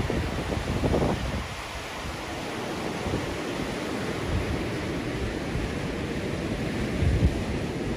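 Fast mountain river rushing over boulders in a steady white-water noise, with a few low gusts of wind buffeting the microphone about a second in and near the end.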